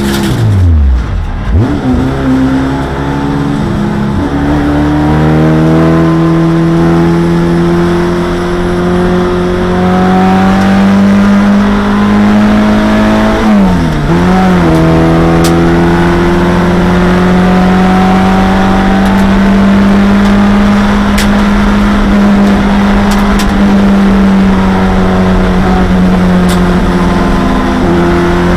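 A 1987 Honda CRX Si race car's four-cylinder engine, heard from inside the cockpit while lapping hard. The revs drop steeply at the start, then climb back and pull steadily under throttle. About halfway through there is a short dip-and-recover in the revs, then the engine pulls on to the end.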